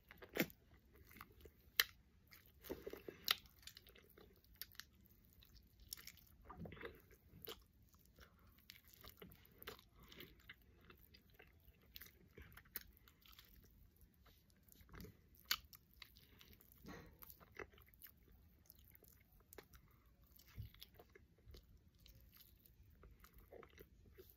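A person chewing and biting into hot chicken wings, close up: faint, continuous mouth and chewing sounds broken by scattered sharp clicks.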